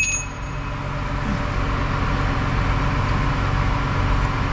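Truck diesel engine idling steadily. A metallic ring fades out in the first moment.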